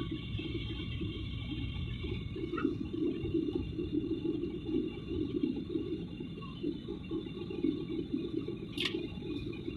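Steady cabin noise of a jet airliner in flight, a Malaysia Airlines Boeing 737: a dense low rumble of engines and airflow with faint steady higher tones. A single sharp click sounds near the end.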